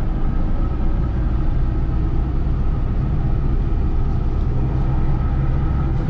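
Steady engine and road noise of a GAZelle Next light truck while driving, heard from inside the cab.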